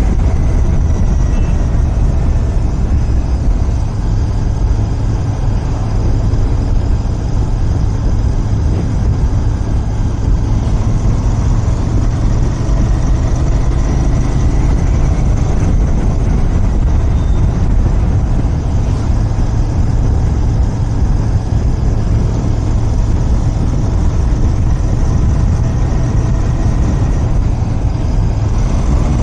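Royal Enfield Continental GT 650's parallel-twin engine running steadily through its stock exhaust while the bike is ridden.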